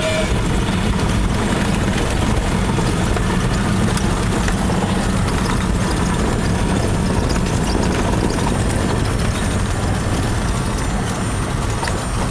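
Piston engine and propeller of a light single-engine plane running steadily, heard from inside the cockpit as the aircraft rolls over a grass runway.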